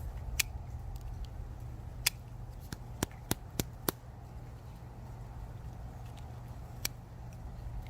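Sharp clicks of a custom folding knife being handled, its blade and lock clicking. There is a single click, then a quick run of four clicks about three seconds in and one more near the end, over a steady low hum.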